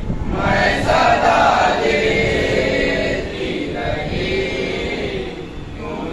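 A group of male mourners chanting a Shia noha (lament) refrain together in unison, a chorus answering the lead reciter's lines.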